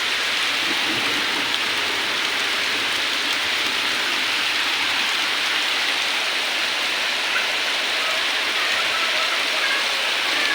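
Heavy monsoon rain falling, a steady, even hiss of rain striking surfaces.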